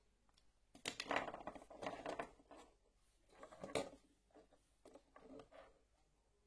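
Close handling noise from working on electrical wiring: irregular rustling, scraping and small clicks of wire and parts being handled, in a few short clusters.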